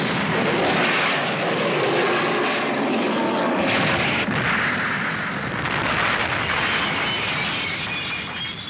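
Anime explosion sound effect: a sudden blast whose noise carries on for several seconds and eases off near the end.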